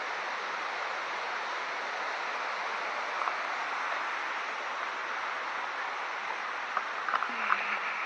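Steady rush of the Little Miami River's water running through the gorge below, with a few footsteps on the gravel trail near the end.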